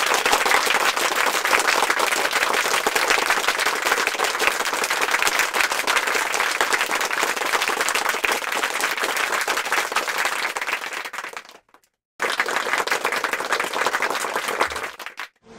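A crowd applauding, a dense patter of many hands clapping. It fades out about eleven and a half seconds in, stops briefly, then starts again abruptly and runs on until just before the end.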